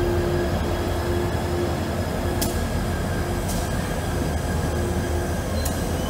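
Freight train rolling slowly around a sharp curve: a low, steady rumble from the cars, with a whining tone from the wheels that fades in and out. Three sharp clicks or clanks sound over it.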